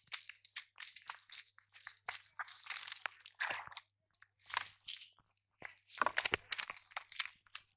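A cast net rustling and crunching as hands pull fish out of the tangled mesh on the ground: short, irregular scrapes and crackles.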